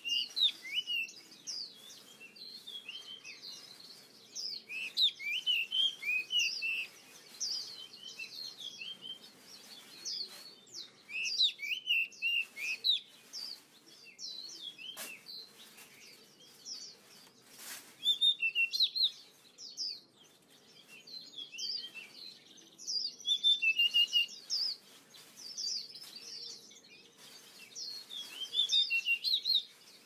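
Small forest birds chirping and twittering: many short, high, quickly bending calls in clusters.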